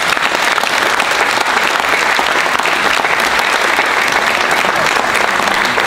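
Audience applause: many people clapping steadily and loudly.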